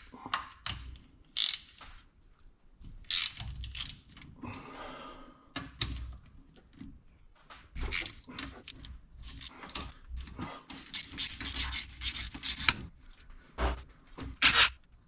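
Hand ratchet wrench clicking in irregular bursts as 13 mm bolts are backed out of a Ford 8.8 rear differential cover, with metal clinks and scraping between the bursts.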